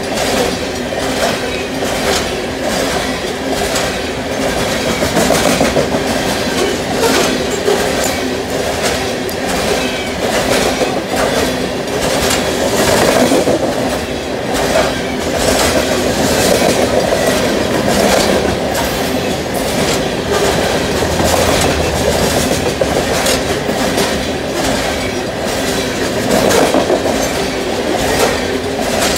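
Loaded coal train of hopper cars rolling past close by: a steady rumble and rattle of steel wheels on rail, with a rapid, continuous clickety-clack of wheels over the rail joints.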